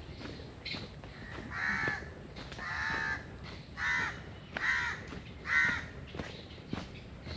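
A crow cawing five times, the harsh calls coming about a second apart, over footsteps on a path.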